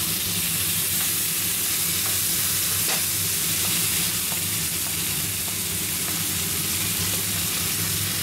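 Chicken pieces sizzling as they go into a hot wok of butter, garlic and red pepper, with a spoon scraping them off a bowl and stirring, giving a few light clicks.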